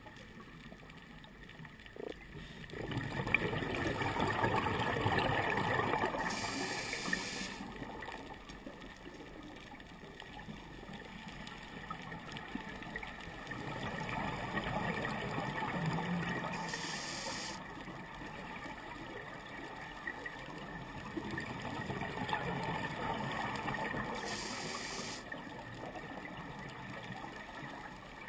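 Scuba regulator breathing heard underwater: three rushes of exhaled bubbles about eight to ten seconds apart, each followed by a short high hiss.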